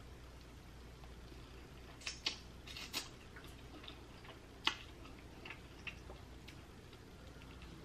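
Faint eating sounds of a seafood boil eaten with the fingers: soft mouth and finger sounds with a few sharp clicks and taps as food is picked up from the plate and sauce bowl, loudest in a cluster about two to three seconds in and once near five seconds.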